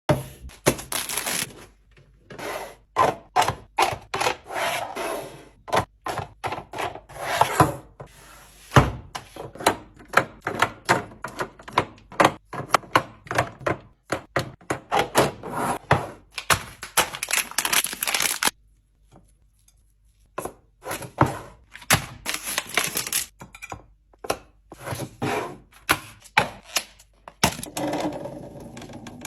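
Food containers and packaging being handled and set into a fridge: a steady run of knocks, clacks and rustling, with a brief pause about two-thirds of the way through.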